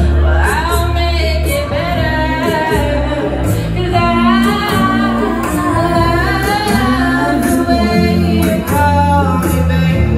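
A woman singing into a microphone over karaoke backing music, amplified through PA speakers, with steady bass and a regular drum beat under her held, gliding notes.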